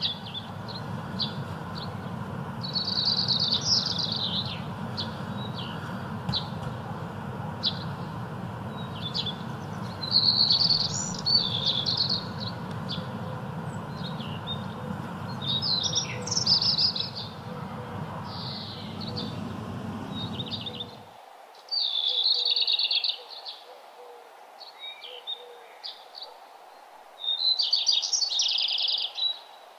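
A bird singing short bright phrases about every six seconds, with scattered chirps between them. Under it runs a low steady rumble that cuts off suddenly about two-thirds of the way through.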